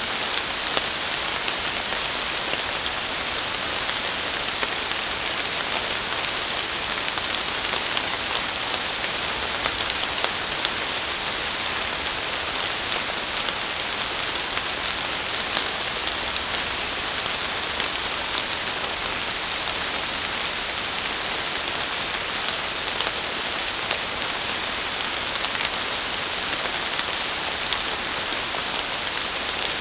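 Steady rain falling on forest leaves: a dense, even patter with individual drops ticking through it, holding the same level throughout.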